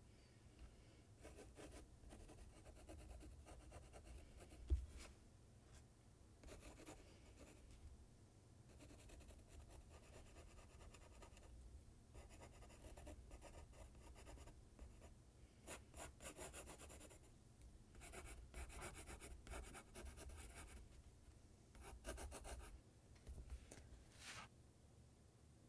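Faint scratching of a Staedtler Mars Lumograph graphite pencil sketching on sketchbook paper in irregular strokes, with a brief low thump about five seconds in. The strokes stop shortly before the end.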